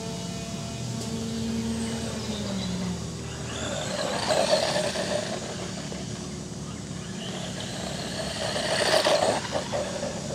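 FTX Tracer RC buggy's brushed electric motor and drivetrain whining as it drives over loose dirt. The pitch drops about two to three seconds in, and louder surges of motor and tyre noise come around four seconds in and again near nine seconds.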